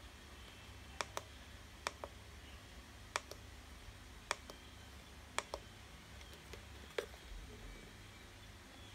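Handheld plastic RC transmitter being handled and turned over, giving about ten sharp plastic clicks at irregular intervals, some in quick pairs, over a faint low hum.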